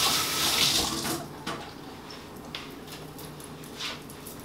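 Kitchen faucet running as hands are rinsed under it, shut off about a second in, followed by a few faint rustles and clicks as the hands are dried with a towel.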